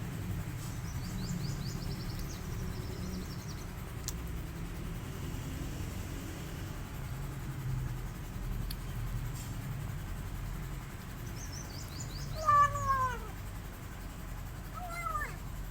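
A kitten meowing: one loud meow that falls in pitch about three-quarters of the way through, then a shorter, fainter meow near the end.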